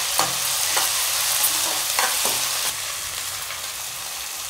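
Sliced onions and green chillies sizzling in hot oil in a kadai, with a steel perforated ladle stirring and scraping them against the pan. The scraping stops a little past halfway, leaving only the sizzle.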